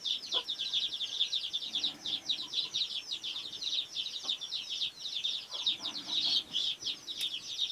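A brood of chicks peeping without pause: many overlapping high peeps a second.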